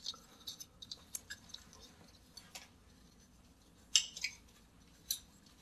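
Nylon trimmer line being wound by hand onto the plastic spool of a Stihl AutoCut 25-2 trimmer head: faint scratching and small clicks as the line slides and rubs on the reel, with a sharper crackle about four seconds in and another about a second later.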